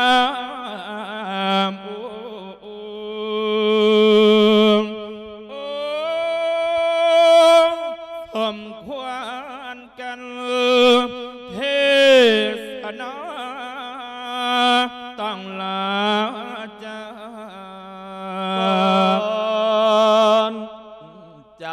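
A monk chanting Isan lae, the melodic Thai sermon sung to send off the spirit of the dead, in long held notes that waver and slide between pitches, with short breaks between phrases.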